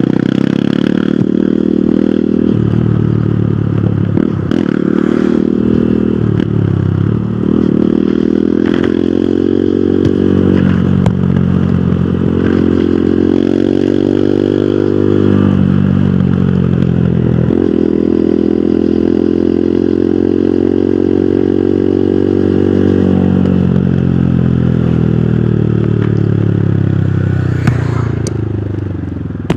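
Hero Hunk motorcycle's single-cylinder four-stroke engine under way, its pitch climbing and then dropping suddenly several times as it shifts up through the gears. Near the end the engine note falls steadily as the bike slows.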